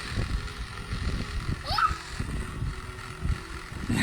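Wind buffeting the microphone in an irregular low rumble, with the Gazillion Bubbles Tornado bubble machine's fan motor humming faintly underneath. A brief high-pitched voice sound rises a little under two seconds in.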